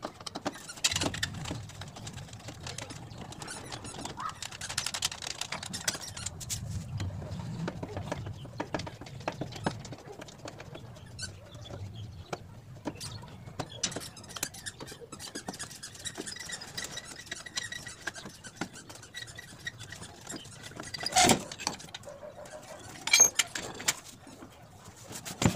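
Hand disassembly of a rusty office chair: a screwdriver clicking and scraping on the steel seat-mechanism screws, with metal parts rattling and two louder knocks near the end.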